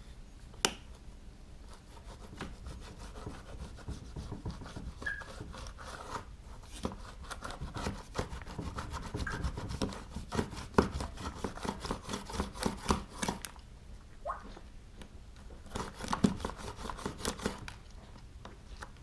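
A rubber bandsaw tire being cut to width with a rotary cutter: scraping and rubbing with fast runs of sharp clicks, in one long stretch through the middle and a shorter one near the end.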